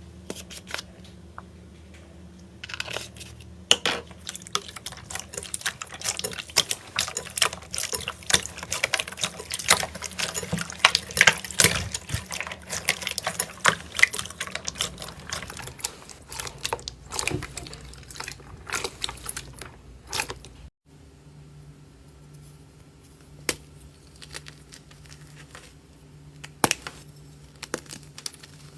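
Slime being squeezed and pressed by hand, making wet clicking and popping sounds, dense at first and sparser after a brief break about two-thirds of the way through, over a steady low hum.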